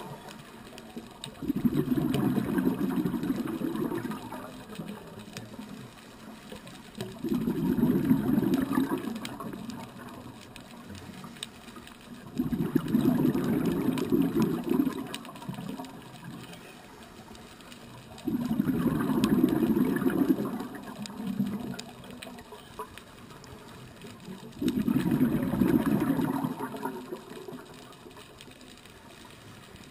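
Scuba diver breathing through a regulator underwater, exhaled bubbles rumbling out in a slow steady rhythm. There are five exhalations, each lasting two to three seconds, about every six seconds, with quieter inhale pauses between.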